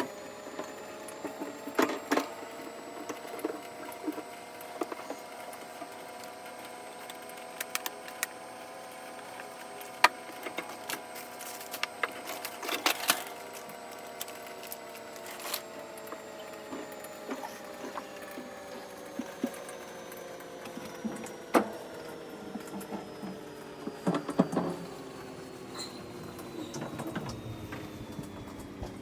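A steady humming drone whose pitch slowly rises and then sinks, with scattered clicks and knocks of items and containers being handled.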